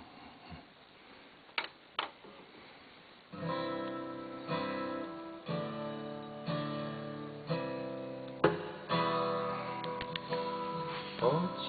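Two sharp clicks, then from about three seconds in an acoustic guitar strumming chords, roughly one strum a second: the intro of a recorded song played back on a hi-fi.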